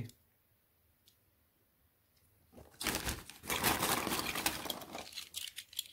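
Thin plastic bag crinkling and rustling as hands rummage through it, starting about halfway in and lasting about three seconds.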